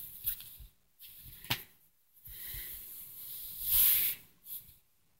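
Faint rustling and brushing of a hand rubbing a cat's fur and the bedspread, in short hissy bursts, with a light click about a second and a half in and the loudest rustle near four seconds.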